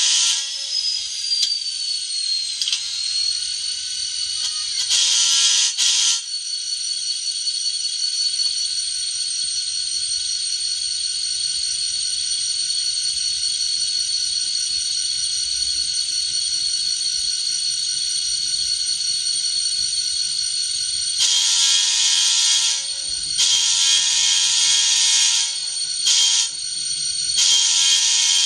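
ESU LokSound sound decoder in an N scale EMD SD40-2 model playing diesel locomotive sounds through its tiny speaker: a steady high-pitched engine whine that falls in pitch over the first few seconds. The horn gives a short blast about five seconds in, and near the end it sounds the long, long, short, long grade-crossing signal.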